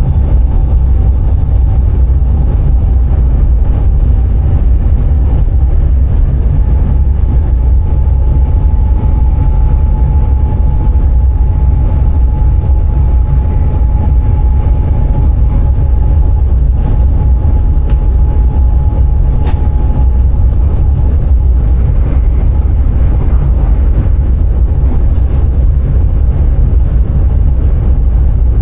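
Sprinter electric train running along the line, heard from inside the driver's cab: a loud, steady low rumble with a steady whine over it that fades in the second half, and a single sharp click about twenty seconds in.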